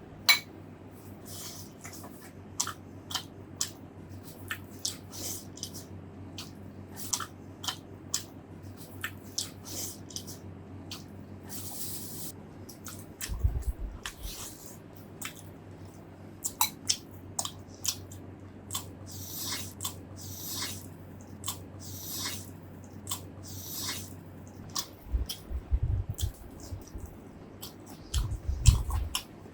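Close-miked eating: chewing and biting with many sharp wet mouth clicks and smacks, plus a few low thumps.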